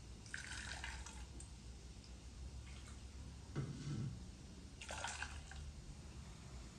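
Ladlefuls of hot milk splashing and dripping into a small enamel saucepan: a few short, faint pours.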